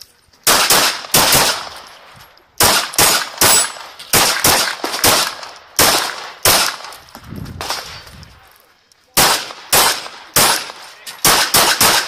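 Glock 17 9mm pistol firing 115-grain ammunition in rapid strings, more than twenty shots, mostly in quick pairs. There is a pause of about two seconds past the middle, then the shooting resumes in fast pairs.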